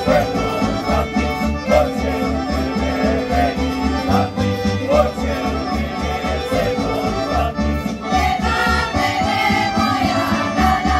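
Serbian folk dance music for a kolo, led by accordion over a steady pulsing bass beat; voices come in singing about eight seconds in.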